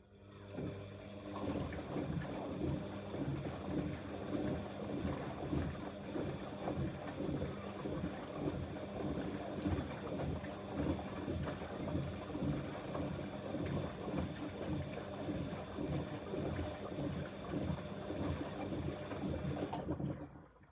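Bosch Exxcel 1400 washing machine turning its drum in a wash cycle: a steady motor hum with water and a load of teddy bears sloshing and tumbling in pulses. It runs for about twenty seconds and stops suddenly at the end of one drum rotation phase.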